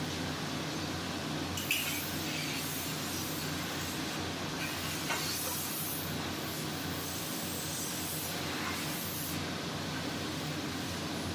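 Steady machinery hum, with short hisses, like air or spray, about two, five and eight seconds in.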